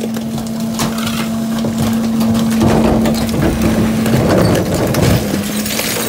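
Garbage truck compactor packing trash in the hopper. A steady hydraulic hum runs throughout, and from about halfway in there is loud crunching and cracking as bags and items are crushed.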